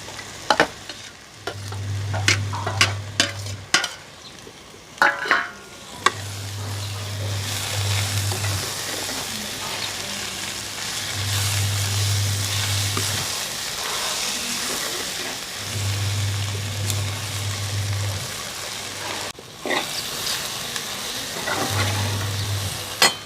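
Okra and onions frying in a pan while being stirred. A spoon knocks and scrapes against the pan several times in the first six seconds, then a steady sizzle. A low hum comes and goes five times.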